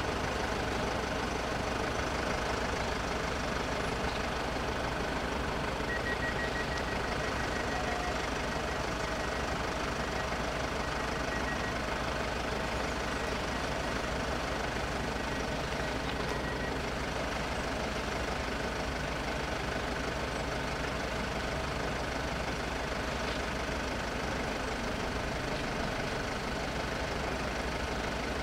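Steady low rumble of car engines idling at a closed level crossing, with a constant hum and no change in level. About six seconds in, a faint quick series of high pips runs for several seconds, and it comes back briefly later.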